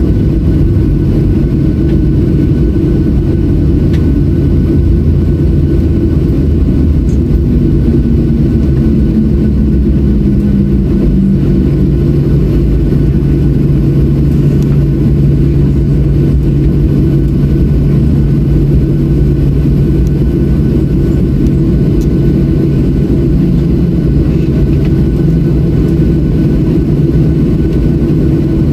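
Boeing 737-700 cabin noise heard from a window seat over the wing: the CFM56-7B jet engines running at taxi power with a steady low hum and rumble as the airliner taxis along the runway.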